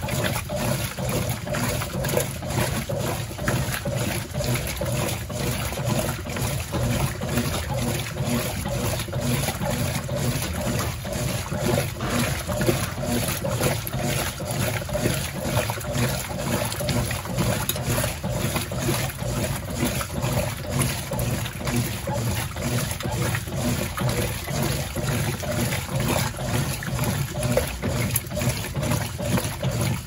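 Brastemp Total BWL09A top-loading washing machine agitating its load in the rinse on the 'turbo' setting: water and clothes churning with a steady, rapid rhythm.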